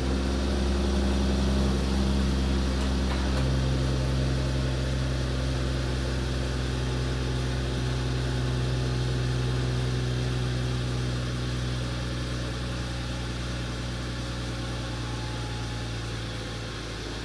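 Mercedes-Benz GLE 450's M256 3.0-litre turbocharged inline-six idling steadily just after a cold start, heard from the tailpipe. It grows gradually quieter as the cold idle settles.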